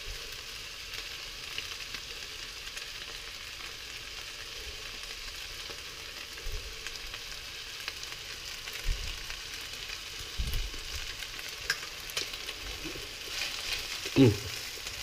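Vermicelli noodles with prawns and vegetables sizzling steadily in a hot wok as they stir-fry, with a few low thumps in the second half and a short louder sound near the end.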